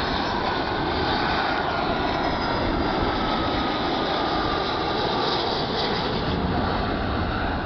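Jet engines of a Boeing 757 airliner passing low on landing approach, gear down: a loud, steady rushing engine noise with a faint whine that slowly falls in pitch.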